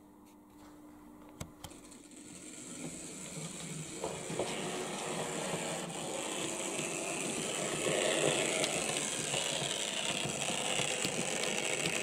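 A model diesel locomotive running along model railway track, its motor and wheels rattling and clicking on the rails. It grows steadily louder as it approaches, with a couple of sharp clicks about a second and a half in.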